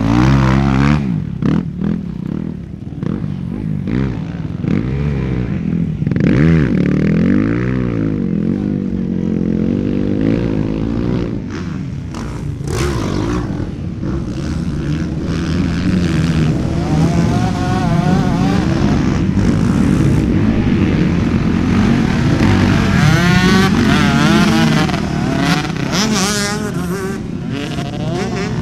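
Motocross dirt bike engines revving hard and dropping back again and again, several at once, as the bikes spin their rear wheels through deep mud.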